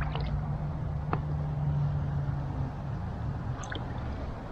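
Light water sounds, drips and small splashes, with a few faint clicks over a steady low hum.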